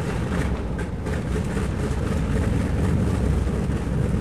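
Engines of a twin-engine airliner running steadily as it warms up, a low rumble, heard as a stereo LP recording.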